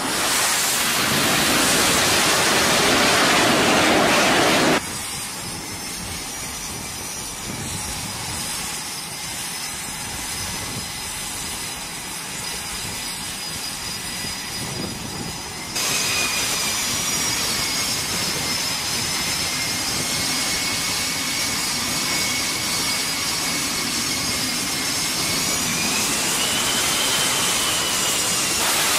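F/A-18 Super Hornet jet engines (twin GE F414 turbofans): a loud rush of jet noise as a jet lands. After abrupt cuts this gives way to the steady high whine of jets idling and taxiing, with the whine rising near the end.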